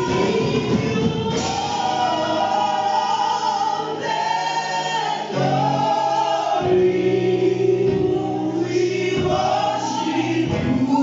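Gospel music with a choir singing held, swelling notes in several voices.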